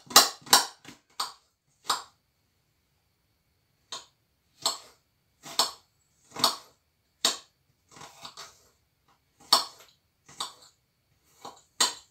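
Kitchen knife dicing an onion into small cubes on a cutting board: separate sharp knocks of the blade on the board, several quick ones at first, then a pause of about two seconds and slower single cuts roughly once a second.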